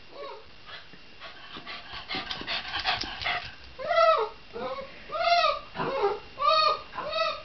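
Shiba Inu whining in a series of about six short, high-pitched calls, each rising then falling in pitch, starting about four seconds in. Before them comes a patter of light clicks.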